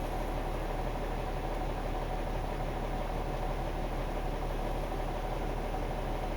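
1999 Jeep Cherokee XJ engine idling steadily, heard from inside the cabin, with a mystery noise that began after the oil pump was replaced; the owner cannot tell whether it is a rod knock or a lifter tick.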